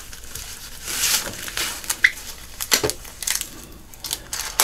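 Paper rustling and crinkling as sheets of packing paper are handled, in irregular bursts.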